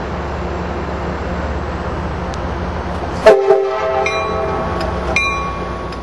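Steady low rumble of a standing commuter train, then about three seconds in its air horn blasts at very close range, a loud chord of several notes held to the end.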